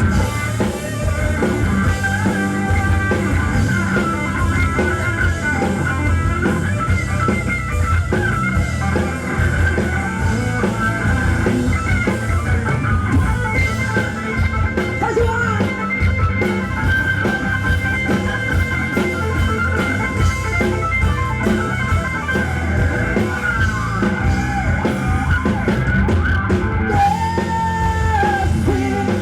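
Live rock band playing an instrumental passage with no singing: a guitar lead with bending notes over bass and a drum kit.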